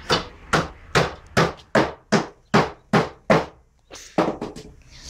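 Hammering: about nine sharp, evenly spaced blows at roughly two and a half a second, then a short pause and a few quicker, lighter taps near the end.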